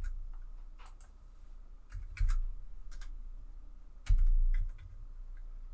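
Typing on a computer keyboard: scattered irregular keystroke clicks, with two heavier dull thumps about two and four seconds in.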